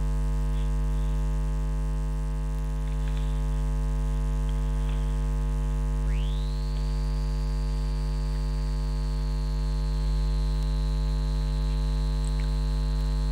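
Steady electrical mains hum, a low buzz with many evenly spaced overtones. About six seconds in, a thin high whine glides up and then holds steady.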